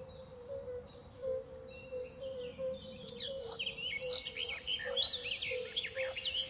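Outdoor ambience of birds chirping: a steady series of short chirps repeated two or three times a second, joined by a busier mix of calls from about three seconds in, over a faint steady low tone.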